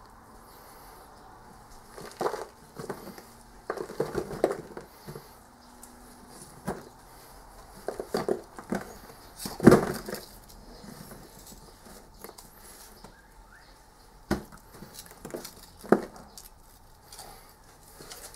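Foundry sand mould being broken apart: irregular crumbling, scraping and knocks as the packed sand is pulled away from a fresh aluminium casting, with a sharp knock about halfway through as tongs take hold of the casting.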